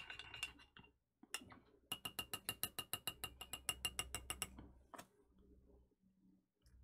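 A spoon clinking against a ceramic mug while stirring: a quick run of about seven ringing clinks a second lasting a couple of seconds, with single clinks just before and after.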